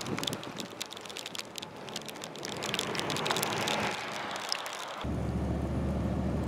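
Small snow pellets (graupel) hitting a car's glass and bodywork: a dense, irregular run of sharp little ticks over a hiss. About five seconds in, this gives way suddenly to a steady low rumble.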